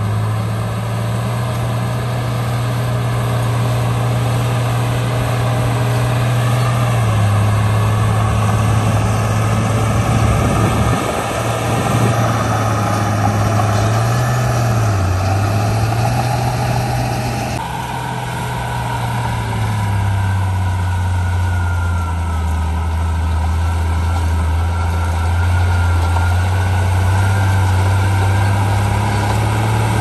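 Heavy diesel engine of earthmoving machinery running steadily, its pitch wavering briefly in the middle and then settling lower a little past halfway.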